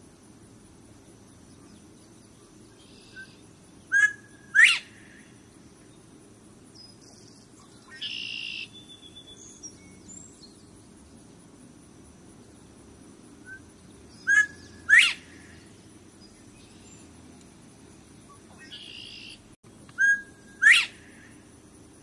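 Northern bobwhite giving its two-note 'bob-white' whistle three times, each a short flat note followed by a louder, sharply rising second note. Fainter short sounds are heard between the calls, about 8 and 19 seconds in.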